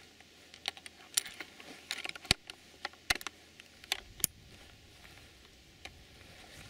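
Scoped bolt-action rifle being handled and loaded: a run of short, sharp metallic clicks from the bolt and magazine over about four seconds, the loudest a little past two seconds in.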